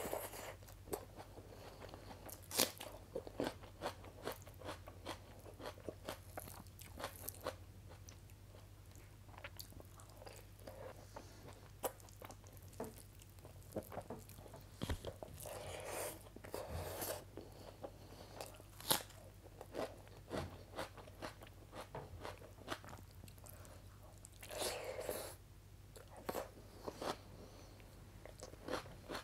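Close-miked mukbang eating of vegetable pakora kadhi with rice, eaten by hand: many short crunching bites and chewing clicks, with a few longer, busier stretches of chewing about halfway through and near the end.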